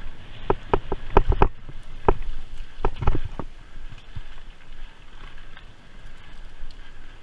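Cyclocross bike ridden fast over rough dirt and gravel, heard through a camera mounted on the bike: a run of sharp knocks and rattles as the bike jolts over bumps in the first few seconds, then a steadier rumble of tyres and wind.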